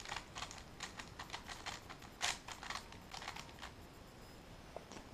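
A 3x3 Rubik's speedcube being turned at full speed in a speedsolve: a fast, uneven run of plastic clicks and clacks lasting about three and a half seconds, then it stops as the cube is set down.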